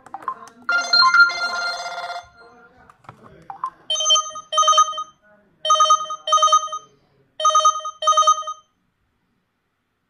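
LG Tribe (KS360) phone's loudspeaker playing built-in ringtone previews. A short chord-like burst comes about a second in. From about four seconds a telephone-style double ring sounds three times, each pair of short electronic tones about a second and a half after the last.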